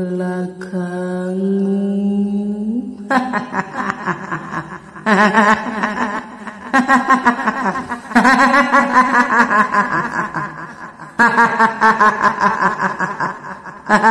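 A woman's voice does the high, quavering 'hihihi' cackle of a kuntilanak ghost. It starts about three seconds in and runs in a string of bursts with short breaks. Before that it stretches out the last spoken word slowly.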